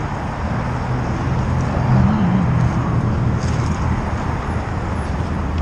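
Steady low rumble of motor-vehicle engines and road traffic, with a low engine hum that wavers slightly about halfway through.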